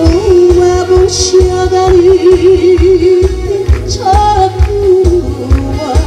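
A woman sings a song into a microphone over a recorded backing track with a steady, heavy bass beat. Early on she holds a long note with a wide vibrato, then moves on to higher, shorter phrases.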